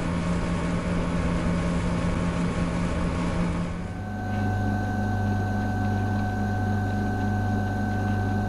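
An air conditioner running with a steady hum. About four seconds in it switches to a refrigerator's hum: a deeper steady drone with a thin, faint high whine over it.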